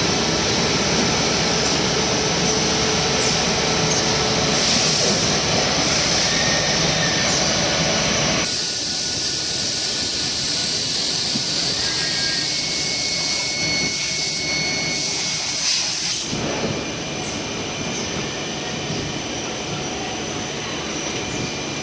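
CNC turning machine running: a steady hissing, whirring machining noise with a faint high whine. The sound changes abruptly twice, about a third and three quarters of the way through.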